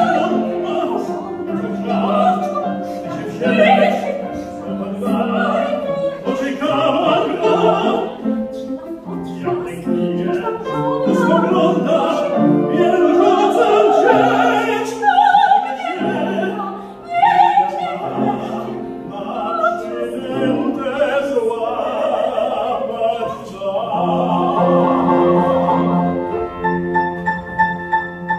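Operatic singing accompanied by a grand piano. Near the end the voice stops and the piano plays on alone with repeated notes.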